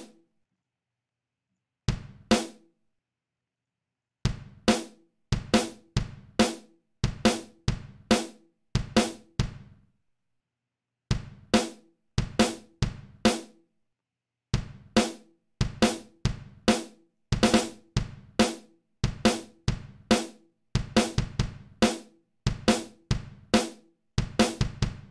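Drum samples, an ambient bass drum and a second one-shot, playing as a short step-sequenced beat in the LMMS Beat+Bassline editor. Sharp, quickly decaying hits come a few a second in runs of several seconds, cut off by full silences where playback stops as the steps are edited.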